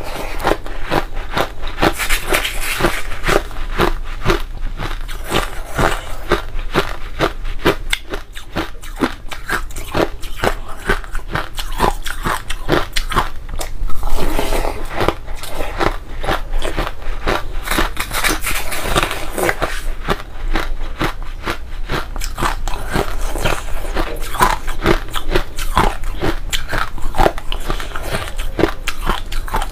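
A person chewing crushed ice: a dense, continuous run of crisp crunching bites.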